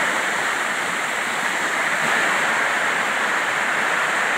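Small waterfall pouring down over rocks: a steady, even rush of falling and splashing water.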